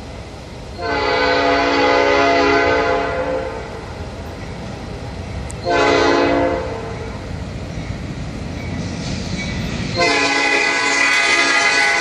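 Freight locomotive's multi-chime air horn sounding for a grade crossing: a long blast, a short one, then another long one that is still sounding at the end, over the rumble of the approaching train. This is the tail of the standard long-long-short-long crossing signal.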